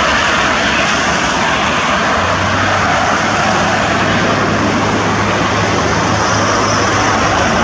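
Steady noise of freeway traffic passing below, with a low engine hum joining about two seconds in.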